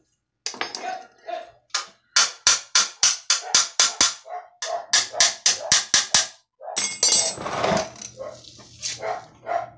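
A dog barking repeatedly in quick runs, about three barks a second, with a short pause between runs, then softer, scattered barks. A low steady hum comes in near the end.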